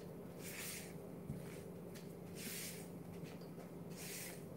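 Faint, soft swishes of a spatula folding beaten egg whites into cake batter in a plastic mixing bowl, about one stroke every two seconds, over a steady low hum.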